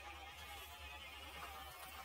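Faint whine of an RC crawler's small electric motor, sliding down and then up a little in pitch, over a low steady hum.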